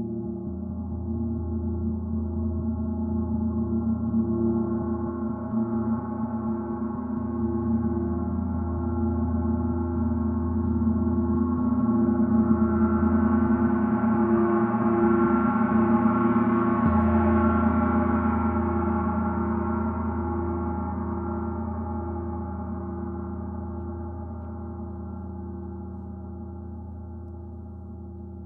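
Oetken 32-inch Water Gong played with a soft mallet, building into a loud, continuous shimmering wash of many overlapping tones with a slow throb, with no separate strikes heard. About two-thirds of the way in the playing stops and the gong rings on, slowly fading.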